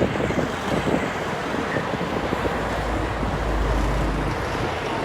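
Strong wind buffeting the microphone: a steady rushing noise, with a deep rumbling gust from about three to four and a half seconds in.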